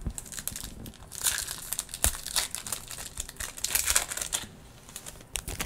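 Foil wrapper of a 2021 NFL Mosaic trading card pack crinkled and torn open by hand: irregular sharp crackles, loudest in the middle, dying down near the end.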